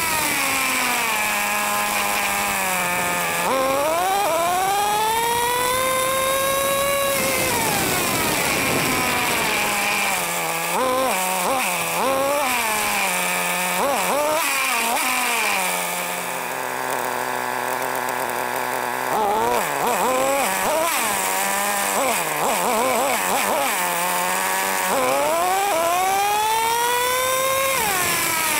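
Traxxas T-Maxx 3.3's small two-stroke nitro engine, heard close up, revving up and down over and over as the truck drives. It drops to a steady idle for a few seconds about halfway through, with quick throttle blips on either side.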